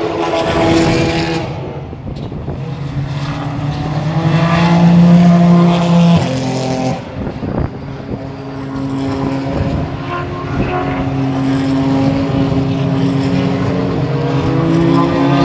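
Racing cars driving past at speed through a corner, their engines loud and changing pitch as each car goes by, with the loudest pass about five seconds in.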